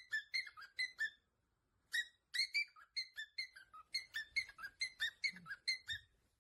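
Parrot giving a rapid string of short, high whistled beeps, about four or five a second, stopping briefly about a second in and then carrying on. It is a wake-up call.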